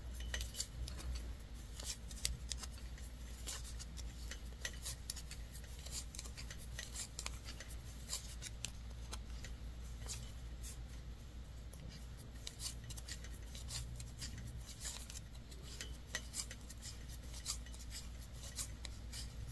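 7 mm wooden knitting needles ticking against each other and rubbing through the yarn as a row of knit stitches is worked: a faint, irregular run of small clicks.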